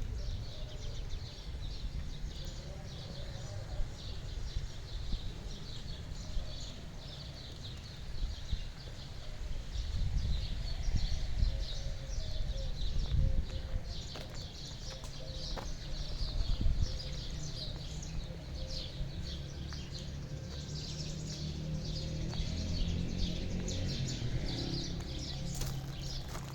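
Many small birds chirping in quick, overlapping twitters, with a steady low rumble underneath.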